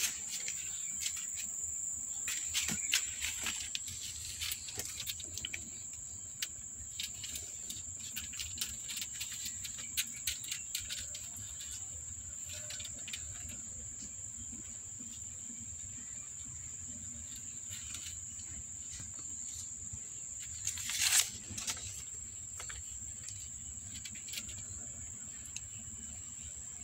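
Insects droning steadily in one high, unbroken tone. Scattered soft clicks and taps through the first half, and one brief louder rustle about 21 seconds in.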